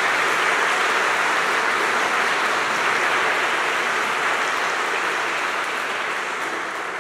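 Audience applauding in a large, reverberant hall, steady and then dying away near the end.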